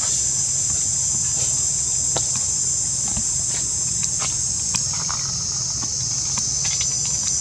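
Steady, high-pitched insect chorus drones without a break, with a few light clicks scattered through it.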